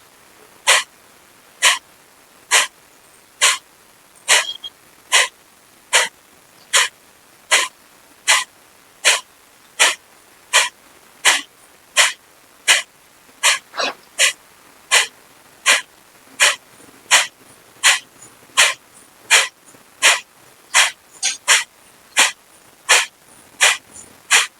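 Kapalbhati breathing: a steady run of short, forceful exhalations through the nose, a little more than one a second, with the passive inhale between them not heard.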